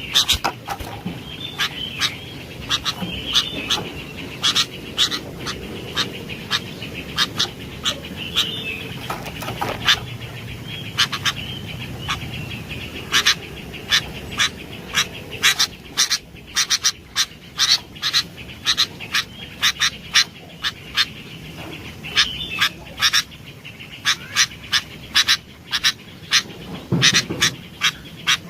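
Sooty-headed bulbuls calling in full voice: a long run of short, sharp chirps that come thicker in the second half, over a warbling chatter.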